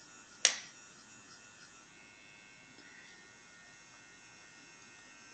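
Electric nail drill (e-file) running with a faint, steady high whine as its fine bit works the nail contour in short intermittent touches. A single sharp click sounds about half a second in.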